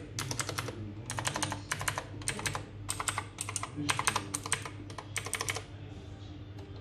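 Typing on a full-size mechanical keyboard with Xinda Blue clicky switches: rapid sharp key clicks in quick runs of several strokes each, stopping about five and a half seconds in. A faint steady low hum lies underneath.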